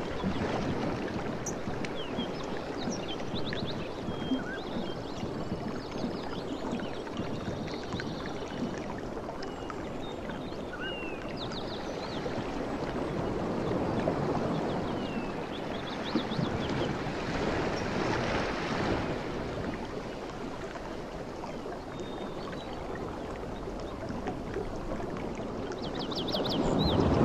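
Steady rushing ambience like flowing water, with short high chirps scattered through it and a swell in loudness near the end.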